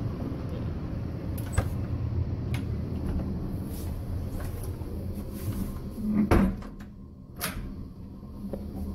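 A train car's bathroom door being handled, with sharp latch clicks and a louder knock about six seconds in. The train's steady low rumble runs underneath.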